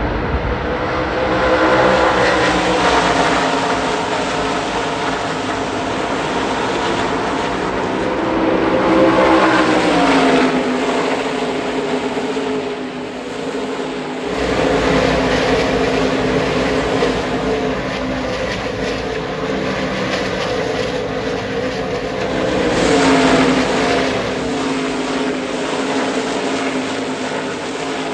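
NASCAR Truck Series race trucks' V8 engines running at speed as a pack circles the oval, swelling loud and dropping in pitch as each group passes, several times over.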